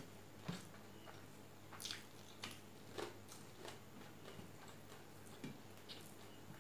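Close-up eating sounds: chewing and wet mouth smacks, with fingers squishing rice and curry against a steel plate. A string of soft irregular clicks and smacks, the sharpest about half a second in and at about three seconds, over a low steady hum.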